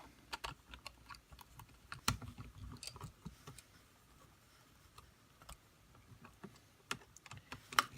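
Faint, scattered small clicks and scrapes of a screwdriver and copper wires being worked loose from a wall outlet's terminal screws, with a few sharper clicks about two seconds in and near the end.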